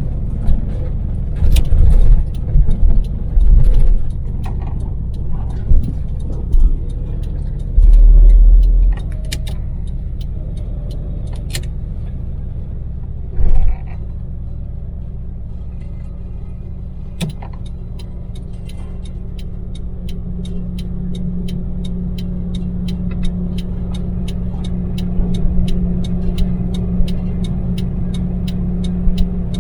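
Inside the cab of a Daewoo Damas microvan's three-cylinder LPG engine and tyres at expressway speed: a steady low rumble broken by several heavy low thumps in the first half. In the second half a steady engine drone grows stronger, with a run of regular light ticks.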